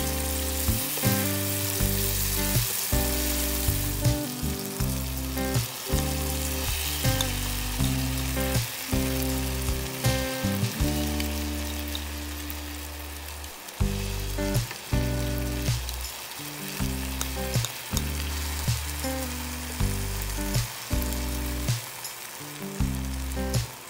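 Onion, carrot and tomato sizzling in oil in a non-stick frying pan, stirred and scraped with a plastic spatula in short ticks; partway through, dry rice is poured onto them and spread around. Background music with low, steady notes runs underneath.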